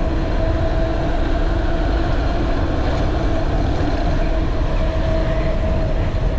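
Wind rushing over the microphone and tyre noise from a mountain bike rolling fast downhill on asphalt, with a steady hum.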